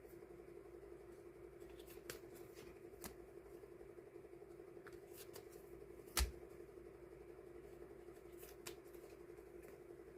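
Hands sorting die-cut paper stickers: light paper handling with a few short taps, one sharper knock about six seconds in, over a steady low hum.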